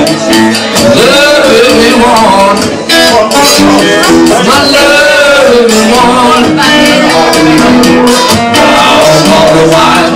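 Live acoustic blues: several acoustic guitars strumming and picking while a harmonica played into a cupped microphone carries the lead, its notes bending up and down.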